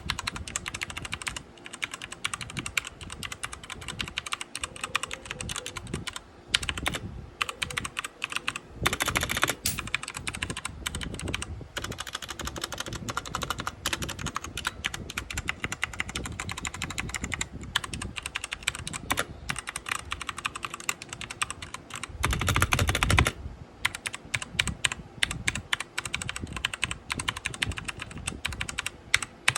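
Cheap mechanical keyboard with brown switches being typed on in fast, irregular runs of key clicks. About 22 seconds in comes a short, louder, denser clatter with a low thud.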